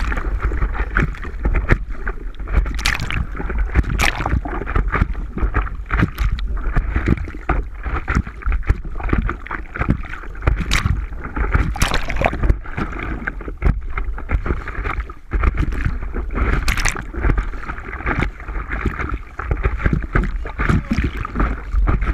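Wind buffeting the microphone over splashing, lapping sea water, with scattered short knocks and splashes.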